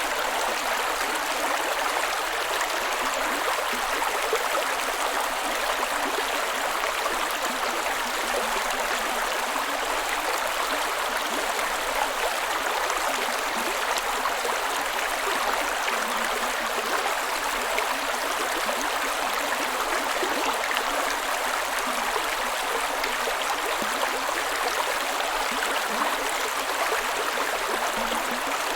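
Steady rush of flowing water, an even hiss with little deep rumble.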